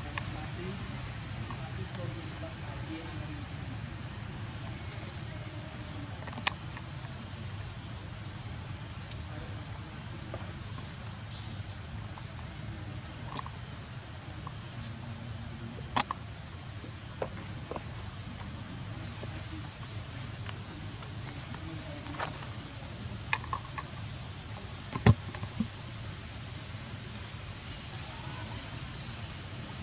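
Steady high-pitched drone of insects, with a few faint scattered clicks and, near the end, two short, louder high chirps.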